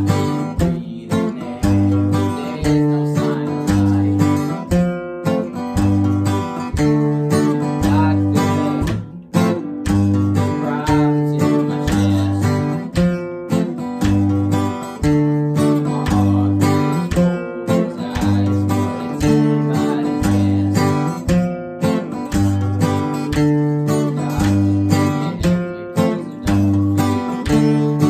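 Two acoustic guitars played together, strumming chords in a steady, even rhythm.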